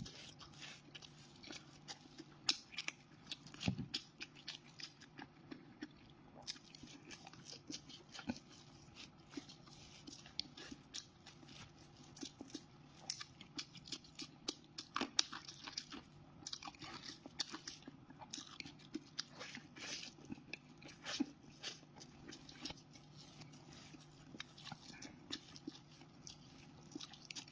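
A person biting and chewing crunchy food close to the microphone: irregular sharp crunches with wet mouth sounds in between.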